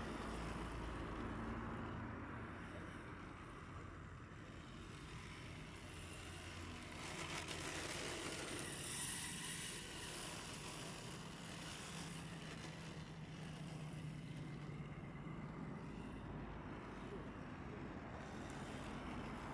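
Rear-wheel-drive RC drift car's brushless electric motor whining and its tyres sliding on asphalt as it circles, growing louder as it passes close about nine seconds in.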